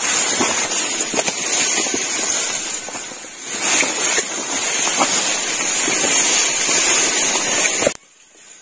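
Rice leaves and stalks rustling and brushing against the camera microphone as it pushes through a tall rice paddy: a loud hissing rustle with scattered crackles that cuts off suddenly near the end.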